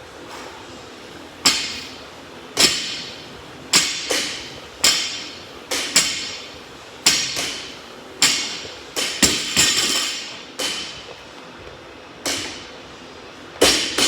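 Loaded barbell repeatedly striking the floor during deadlift reps: sharp metallic clanks about once a second, each ringing briefly, some coming in quick pairs, with a longer pause about two thirds of the way through.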